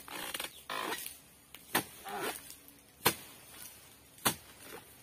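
Long-pole dodos harvesting chisel chopping into an oil palm's frond bases: three sharp strikes about a second and a quarter apart, with softer noise between them in the first half.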